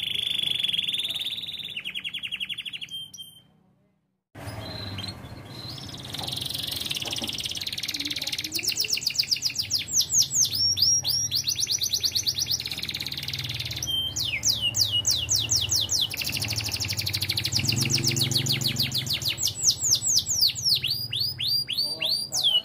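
Canary singing a long song of fast trills: rapid runs of repeated, ringing notes that sweep downward, the 'ting ting' style of a canary in full song. The song breaks off for under a second about four seconds in, then carries on without pause.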